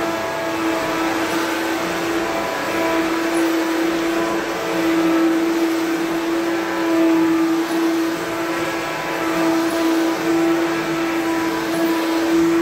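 Self-propelled upright vacuum cleaner running, its motor humming at one steady pitch over a rushing air noise, the level rising and falling slightly.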